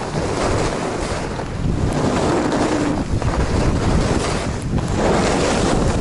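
Wind rushing over the microphone of a camera carried by a rider going fast down groomed snow, mixed with the scrape of edges on the snow; the noise swells and eases with each turn, every second or two.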